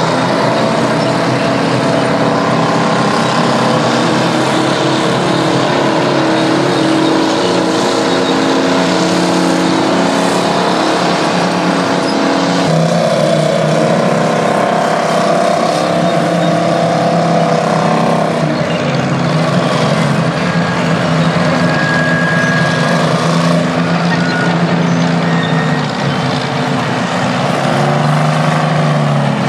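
Euclid TC-12 crawler bulldozer's twin Detroit Diesel two-stroke engines running as the dozer works, a steady loud engine note that changes pitch about 13 seconds in and again around 18 seconds in as the load shifts.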